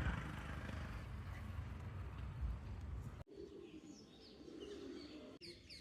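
A steady rushing noise for about three seconds, then a sudden cut to birds chirping in short high notes, with lower cooing calls, likely doves.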